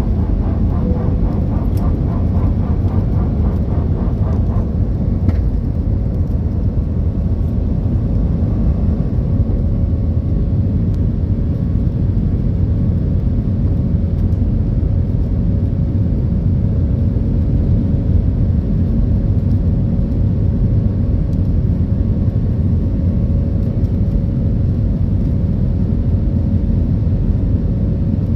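Steady low rumble of a vehicle in motion, with a faint steady hum coming in about six seconds in.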